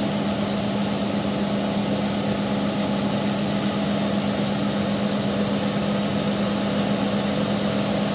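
New Holland TC5080 Hillside combine harvester running steadily while it unloads grain through its auger into a trailer: an even machine hum with one strong low tone and a hiss above it.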